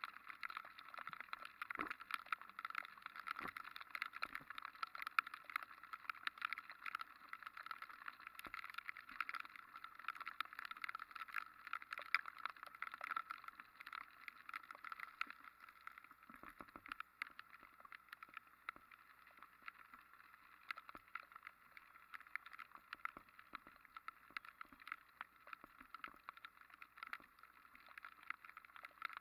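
Rain pattering on a motorcycle-mounted camera while riding over a wet paved street: a steady hiss dense with tiny drop clicks, with a few dull knocks from bumps in the paving.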